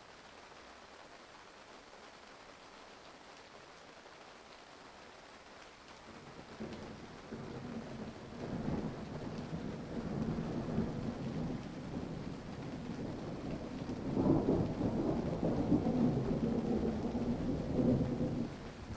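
Steady rain, then a long rolling rumble of thunder that builds from about a third of the way in, is loudest about three quarters of the way through, and dies away near the end.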